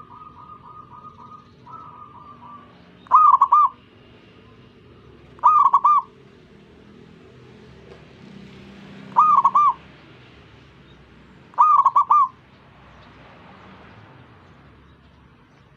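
Zebra doves (perkutut) cooing. A softer rapid trill comes in the first couple of seconds, then four loud, short cooing phrases a few seconds apart.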